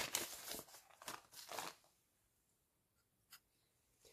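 Clear plastic bags crinkling as they are handled for the first couple of seconds, then near silence with one faint tick near the end.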